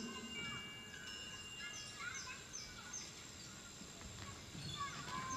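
Dance soundtrack soundscape of short, high, falling chirps repeating about twice a second over several long held high tones, with bird-like swooping calls lower down. Faint low thuds come in near the end.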